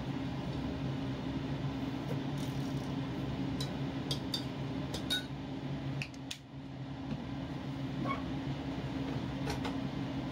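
Steady low hum of a kitchen appliance fan, with a few light clinks of a metal spoon against a ceramic bowl scattered through the middle of it.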